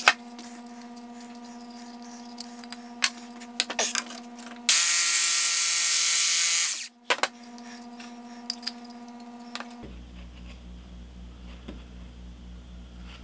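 Cordless Ryobi jigsaw cutting through a small piece of wood. The saw starts suddenly about five seconds in, runs loud for about two seconds and winds down quickly. Scattered clicks and knocks come before and after the cut.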